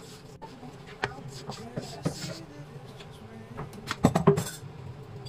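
Plastic tubs being set down on a stainless-steel worktop: a few light knocks, then a louder clatter of knocks about four seconds in, over a steady low hum.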